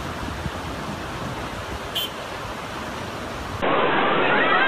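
Steady rushing of a muddy flash-flood torrent, an even noise with one brief click about 2 s in. Near the end it gives way suddenly to louder rushing water with wavering voices over it.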